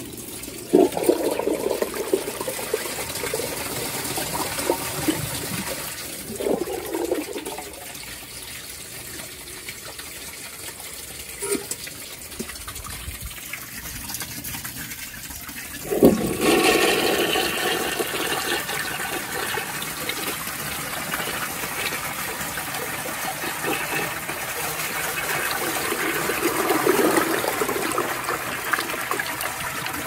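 Two toilet flushes. About a second in, a 1992 URC Atlas toilet flushes briefly and fails to clear a washcloth, which the owner puts down to its small trapway. At about the halfway mark, a 1954 Universal Rundle Castle toilet gives a louder, longer rush of water with a swirling bowl and clears the washcloth.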